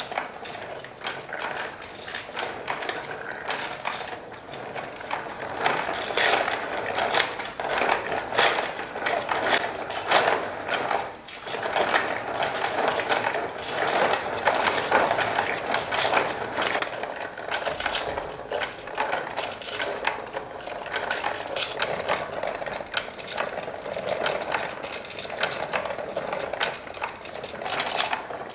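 Wooden automaton mechanism running: its wooden cams, gear wheels and followers click and clatter continuously, with a brief lull about eleven seconds in.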